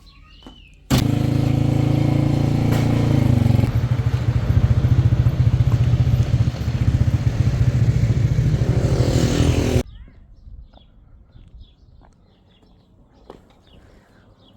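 Motorcycle engine running loudly, cut in abruptly about a second in and cut off abruptly near ten seconds; from about four seconds its steady note breaks into a fast, rough firing pulse.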